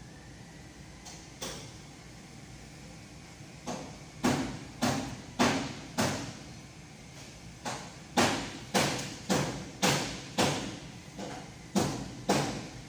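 A series of about fifteen sharp knocks, each ringing out briefly. One faint knock comes early, then the rest follow in irregular runs about half a second apart, like repeated striking on a hard surface.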